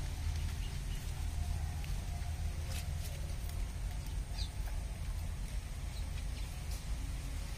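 Outdoor background with a steady low rumble, faint bird calls and a few short sharp clicks.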